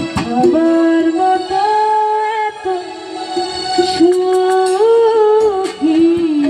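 A woman singing long, held notes with a slight waver into a microphone, over light instrumental backing.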